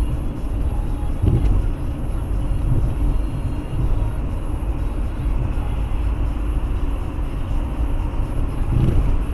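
Car driving, heard from inside the cabin through a dashcam's microphone: a steady low rumble of road and engine noise, with a short low thump about a second in and another near the end.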